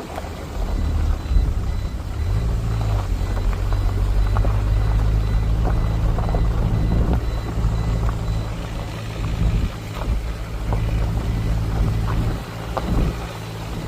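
A motor vehicle's engine running at a steady speed. Its low hum settles in about two seconds in, with scattered knocks and rattles over it.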